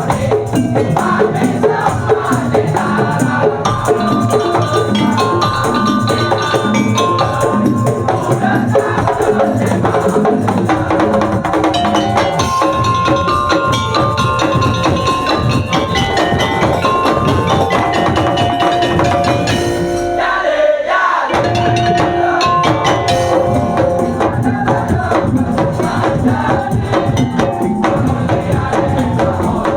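Madurese tongtong (daul) ensemble playing: a steady rhythm of wooden and bamboo slit drums and drums under high melodic lines. The low drums drop out briefly about two-thirds of the way through, then the full ensemble comes back in.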